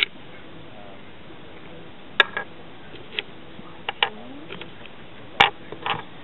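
Small dice clicking against the wooden bowl and each other as they are picked out of it: a few scattered sharp knocks, the loudest about five and a half seconds in.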